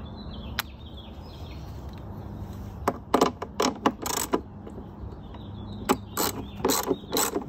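Ratchet wrench with a deep socket loosening a battery hold-down bolt: a single click just after the start, then a run of sharp metallic clicks from about halfway through, over a low steady background hum.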